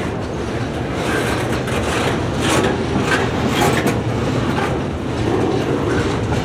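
A long freight train's railcars loaded with containers rolling past. Steel wheels on the rail make a steady rumble, with a few sharp clicks in the middle.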